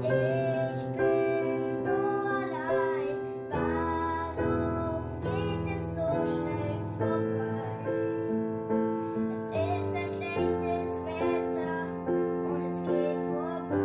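A child singing to piano accompaniment: piano chords struck at a steady pulse under a sung melody.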